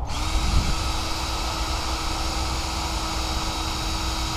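A power tool's electric motor spins up abruptly and runs at a steady speed: an even hiss with a steady whine.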